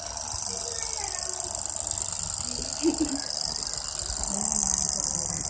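Small electric motors spinning the plastic propellers of a homemade bottle toy helicopter, a steady high-pitched whir.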